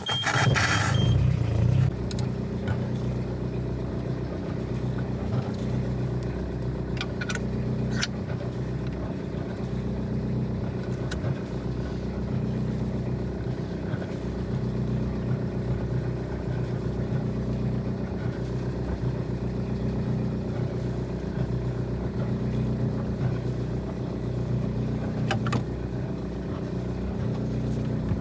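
Sailboat's inboard diesel engine running steadily under way, a low clattering drone, louder for the first couple of seconds, with a few faint clicks over it.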